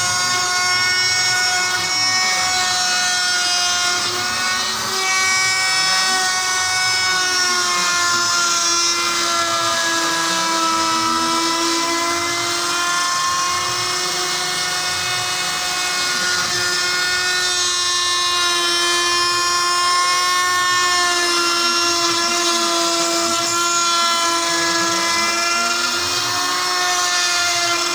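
CNC router running a cutting job: the spindle gives a steady whine that drifts slightly in pitch, while lower tones glide up and down again and again as the axis motors speed up and slow down.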